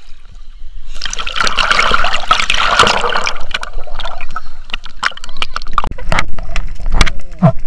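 Sea water splashing and sloshing right against a handheld action camera as the swimmer lies back and dips under. It turns loud and hissy about a second in, then breaks into scattered clicks and knocks once the camera goes below the surface.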